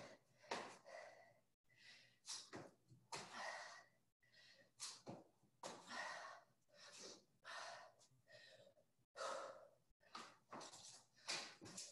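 A person breathing hard and fast from exertion during a dumbbell workout, a quick run of heavy, faint breaths in and out.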